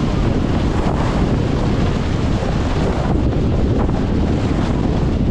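Steady, loud wind rushing over the microphone, as from riding down a snowboard slope at speed.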